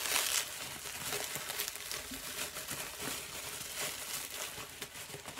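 Packaging crinkling and rustling as items are unwrapped and handled, loudest in the first half second.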